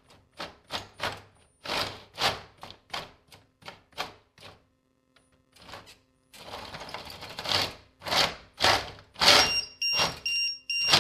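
The plastic 3D-printed track links of an RC tank clack as the brushed-motor tracks are driven, with irregular clacks about three a second that thicken into a continuous rattle about six seconds in. Near the end a high two-tone electronic beeping starts and repeats, the tank's low-battery warning.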